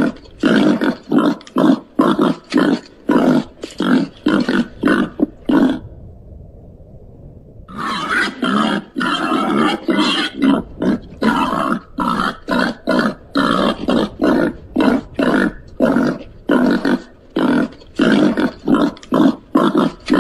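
Babirusa calling in a fast, steady series of short calls, about two or three a second, with a pause of under two seconds about six seconds in.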